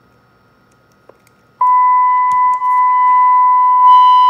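A loud steady beep tone from the Icom IC-400Pro UHF CB radio's speaker, starting about a second and a half in, with a second, higher tone joining near the end. The speaker is giving audio again after its loose connector was reseated.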